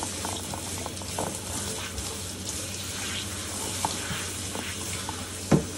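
Water spraying from a handheld sprayer onto a dog's wet coat: a steady hiss with small splashes and clicks. A brief sharp squeak with a falling pitch near the end.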